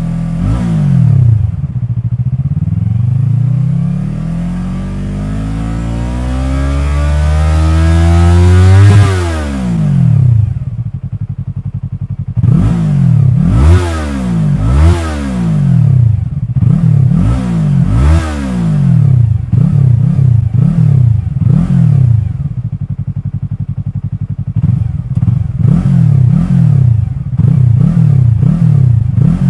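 Yamaha YZF-R3's 321 cc parallel-twin engine revved at a standstill through an Akrapovic carbon slip-on exhaust. One long, slow rev climbs for about nine seconds and drops back, then comes a string of quick throttle blips, each rising and falling back to idle.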